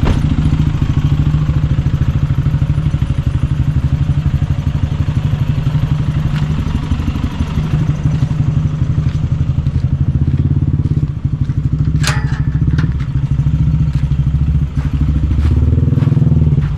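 Toyota Hilux pickup's engine running steadily with an even, fast low pulse, and a sharp knock about twelve seconds in.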